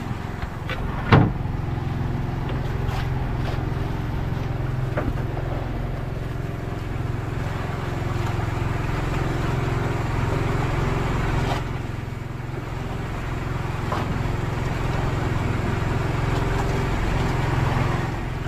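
A boat's engine running steadily at an even pitch, with one sharp knock about a second in.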